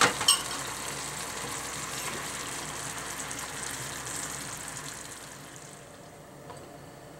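Seared tofu and long green onion simmering in a starch-thickened dashi sauce in a frying pan, a steady sizzle with bubbling. Two sharp knocks come right at the start, and the sizzle fades out about five to six seconds in.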